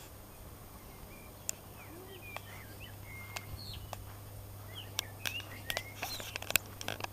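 Small birds chirping, with many short rising and falling calls, and sharp clicks that come more often in the second half.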